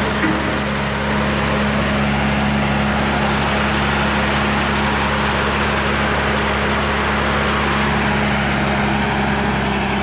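Large diesel engine of heavy site machinery running steadily at a constant speed, a loud, even drone that holds one pitch throughout.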